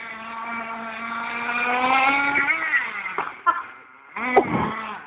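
GV Hunter 1/8 nitro buggy's Force 25 engine running hard, rising a little in pitch and loudness as it accelerates, then dropping off about two and a half seconds in. A short second burst of throttle comes near the end.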